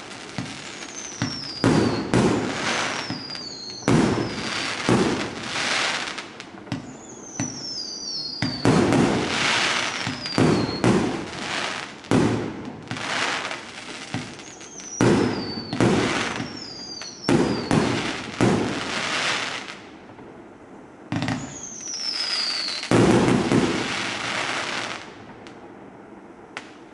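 A 140-shot compound firework cake firing a rapid sequence of shots: launch thumps and aerial bursts with crackle. Several high whistles fall in pitch between the bursts. The barrage stops about 25 seconds in.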